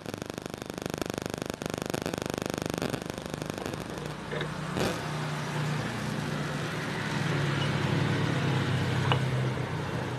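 A steady engine-like hum that swells a little in the later seconds, over a fast buzzing rattle in the first three seconds. A sharp knock comes about five seconds in and a few light taps near the end, from the parts of an electric fan motor being handled as its end cover is fitted.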